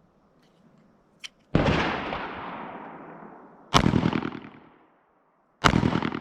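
Three 9 mm Glock pistol shots, a little over two seconds apart, each followed by a long echo dying away.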